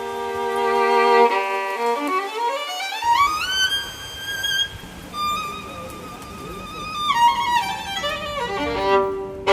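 Instrumental background music: a string melody of long held notes that slides slowly up in pitch a few seconds in and slides back down near the end.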